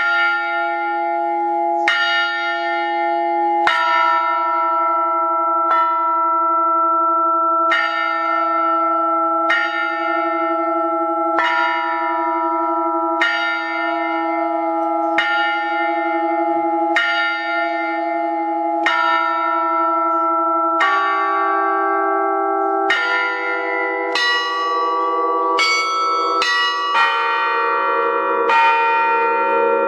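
Russian Orthodox bell ringing on thin-walled bells played together with bila (thick struck metal plates), each stroke ringing on in steady overlapping tones. It starts abruptly, with one stroke about every two seconds at first, then quickens into faster strokes on several pitches over the last ten seconds or so.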